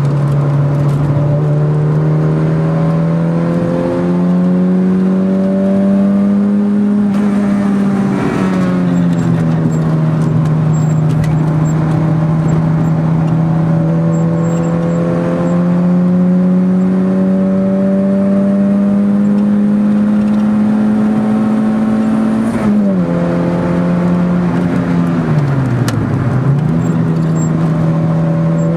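Car engine heard from inside the cabin while lapping a race circuit, its note climbing slowly as the car pulls. The note drops sharply about eight seconds in and again around twenty-three seconds, then dips low and climbs back up near the end.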